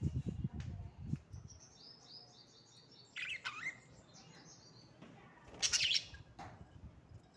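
Parrots calling: a quick run of high chirps, then a loud call that drops in pitch about three seconds in and another loud, harsh call near the six-second mark. A low rumble sounds during the first second or so.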